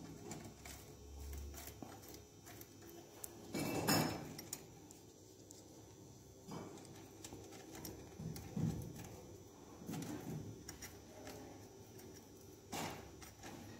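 Light clicks and clinks of small steel parts, washers and nuts, being handled and fitted onto the rocker-arm assembly of a scooter engine's cylinder head, with a few sharper knocks.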